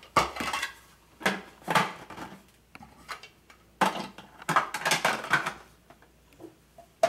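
Plastic food processor lid with its feed tube being fitted onto the bowl and set in place: clattering and knocking of hard plastic in several bursts with short pauses between them.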